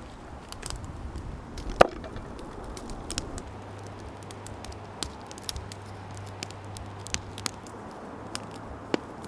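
Campfire crackling with scattered irregular pops and one sharp, loud knock about two seconds in.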